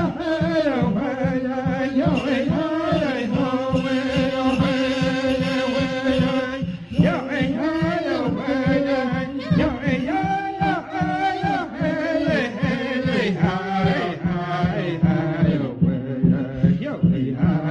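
Background music: a voice singing a melody that slides in pitch, over a steady beat.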